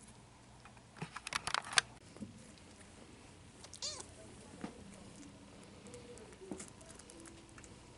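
Bengal mother cat gives one short meow about four seconds in. About a second in, a burst of sharp clicks and rustling is the loudest sound.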